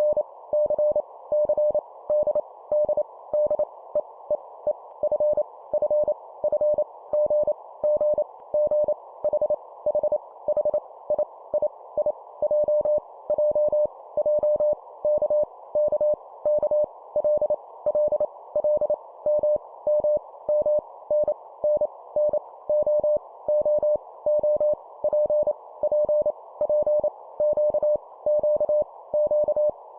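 Morse code (CW) tone of about 600 Hz keyed at 25 words per minute, each letter sent three times over, in short dits and longer dahs over a steady narrow band of hiss.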